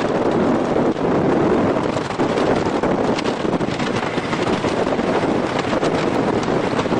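Wind rushing and buffeting the microphone, with a steady rumble and faint clatter from a wooden roller coaster train running along its track during a ride.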